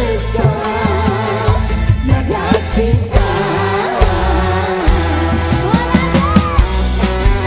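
Live dangdut band music: a woman singing over electric bass, drum kit and kendang hand drums, with steady drum hits.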